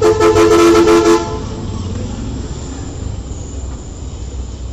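A vehicle horn sounds loudly once for about a second, two steady tones together, then stops. A low steady rumble continues underneath.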